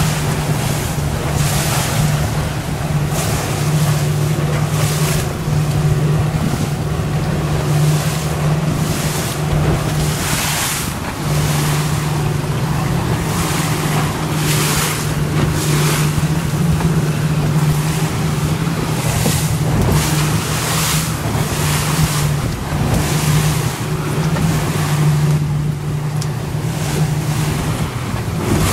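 Motorboat engine running steadily at trolling speed, a low even hum, with water washing against the hull and wind buffeting the microphone in repeated gusts.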